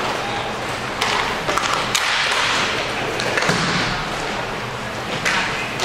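Inline hockey play: skate wheels rolling on the rink floor, with several sharp stick-and-puck knocks.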